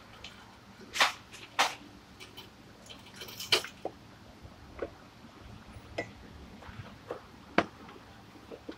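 Hand work at a drive-belt pulley under an Isuzu truck's engine: irregular sharp clicks and knocks, about eight of them, the loudest about a second in and near the end.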